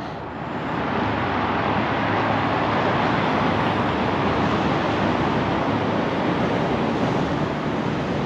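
Steady rushing outdoor noise with no distinct events, swelling slightly in the first second and then holding even.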